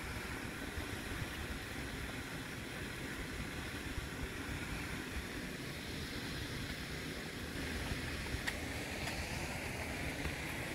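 Wind buffeting the microphone outdoors: a steady rumbling hiss, with one faint click late on.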